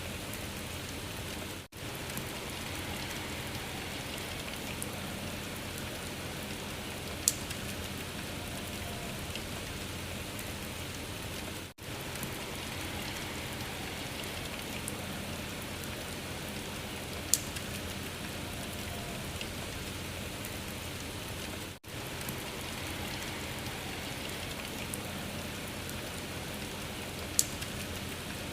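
Steady rain-like patter and hiss from a recording looped about every ten seconds: a brief dropout marks each seam, three times, and a sharp tick recurs once in each loop.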